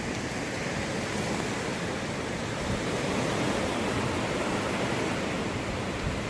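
Hurricane wind and rain making a steady, even rushing noise.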